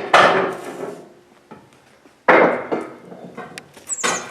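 Sledgehammer knocking steel pipe rollers into place under a machine, three strikes about two seconds apart, each ringing briefly.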